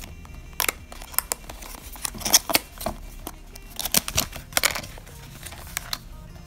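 A small cardboard product box being unboxed by hand: its sleeve slides off and the lid is opened, giving a string of sharp taps, scrapes and rustles of card. The loudest come about two seconds in and again around four seconds in.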